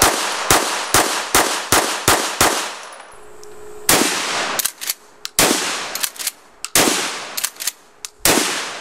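A handgun fired in quick succession, about seven shots roughly half a second apart. Then a pump-action shotgun fires four times about a second and a half apart, each blast followed by the double clack of the pump being worked.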